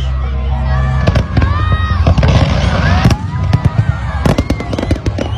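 Fireworks going off in a rapid run of sharp bangs and crackles, starting about a second in.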